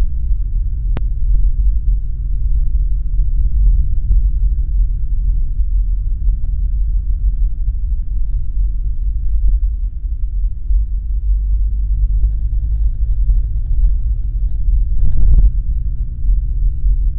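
Steady low rumble of a car driving, heard from inside the cabin: road and engine noise, with a brief louder patch about fifteen seconds in.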